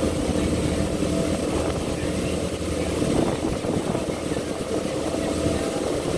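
Water taxi's engine running at a steady cruising speed, a constant low drone under the rush of the boat moving through the water.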